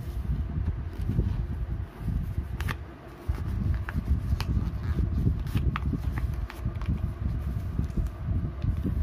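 Sheet of paper being folded and creased by hand, rustling with a few short, sharp crinkles, over an uneven low rumble.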